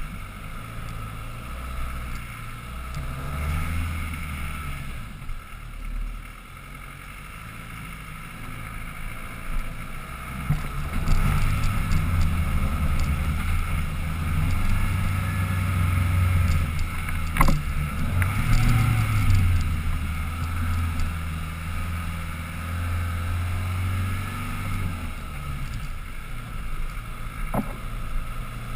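Land Rover Defender 110 engine pulling up a rough fire-trail climb, working harder and louder from about a third of the way in before easing off near the end. A sharp knock about two-thirds through and a smaller click near the end.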